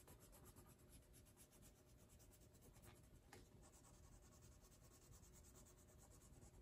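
Faint scratching of a wax crayon coloring in on paper, in rapid back-and-forth strokes.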